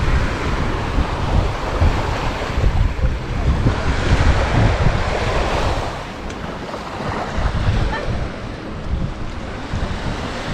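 Sea waves washing onto a sandy beach, with wind buffeting the microphone in gusts. One wave swells and recedes about halfway through.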